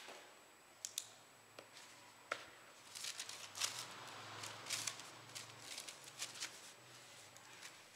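A few light clicks and knocks, then from about three seconds in, paper napkins rustling and crinkling as they are picked up and unfolded by hand.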